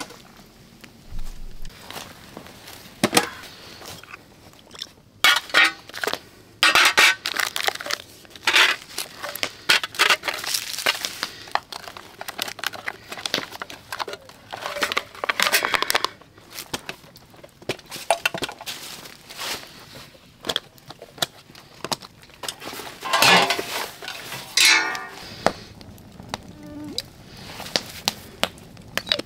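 Handling of camp cooking gear and food: rustling plastic packaging and clinks of a metal food tin and pans, coming on and off with pauses between.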